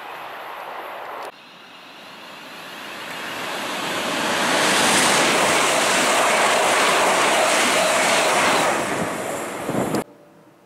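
Electric multiple-unit train passing at speed alongside a station platform: a rushing noise that swells over about three seconds, holds, and then cuts off abruptly near the end. For about the first second, the fainter sound of an approaching Class 390 Pendolino is heard before it breaks off.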